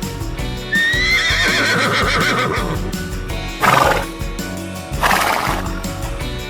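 A horse whinnies once, a long call that rises and then falls away with a tremble, followed by two short breathy blasts about a second and a half apart. Background music with steady notes plays under it.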